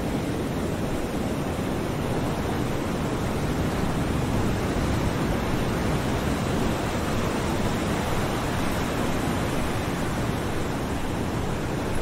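Small ocean waves lapping against the shore: a steady wash of surf that swells slightly a few seconds in.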